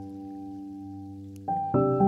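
Background piano music: a held chord slowly fades, then new notes are struck about a second and a half in.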